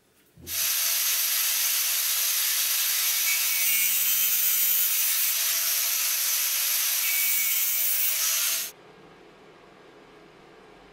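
Angle grinder with a thin cutting disc slotting a small brass piston clamped in a vise: a loud, steady, high hiss of the disc cutting metal. It starts suddenly about half a second in and stops abruptly near the end, leaving only faint background noise.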